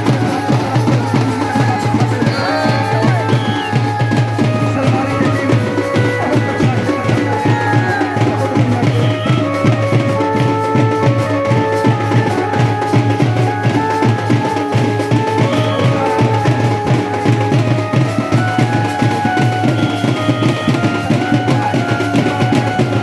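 Music with fast, steady drumming under a melody of held notes.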